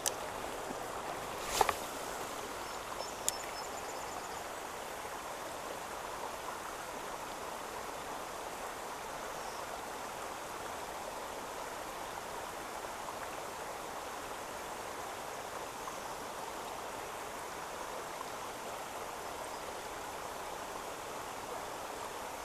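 Steady hiss of rain falling on a pond, with a sharp knock and a thin click about two and three seconds in.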